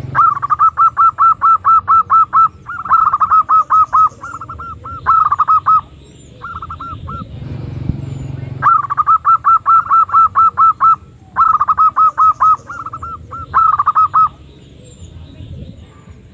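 Female zebra dove (perkutut) lure call: loud runs of short, evenly spaced notes, about nine a second, in bursts of one to two seconds with short pauses between, over a steady low rumble.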